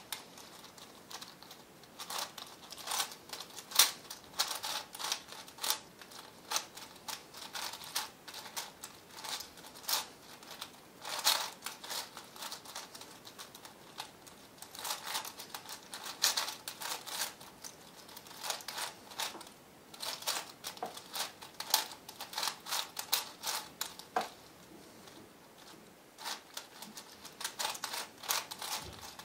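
V-Cube 7 (7x7x7 plastic twisty puzzle) having its layers turned by hand: irregular runs of quick plastic clicks and clacks, broken by brief pauses.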